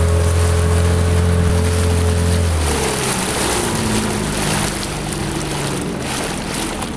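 Small boat's outboard motor running steadily, then throttled back about three seconds in and running on lower and quieter as the boat slows on its approach, with wind and water noise throughout.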